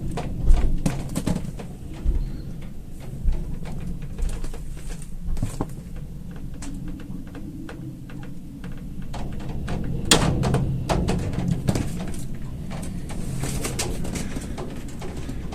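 Loose cables hanging from the roof knocking against a window in the wind, in irregular sharp knocks with a loud one about ten seconds in.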